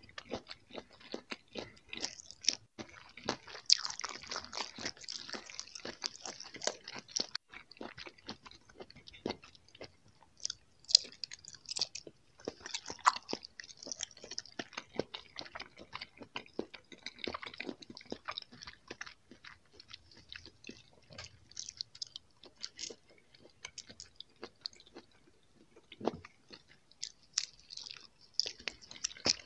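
Mouth sounds of someone biting and chewing soft jelly candies: a dense run of short clicks and smacks, coming and going with a few quieter stretches.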